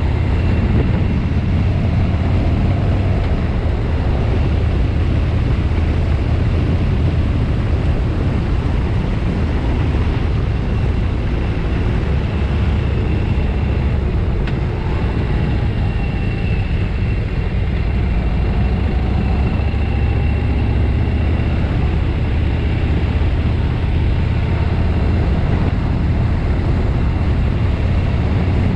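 Harley-Davidson motorcycle's V-twin engine running steadily while riding, heard from a camera on the bike, with a brief change in engine pitch about halfway through.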